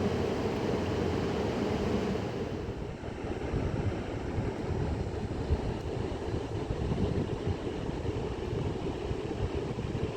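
Steady rush of river water, with wind buffeting the microphone; the sound shifts slightly about two and a half seconds in.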